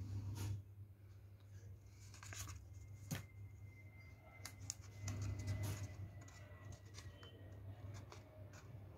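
Stiff white card being handled and folded by hand: scattered soft rustles and light clicks over a steady low hum.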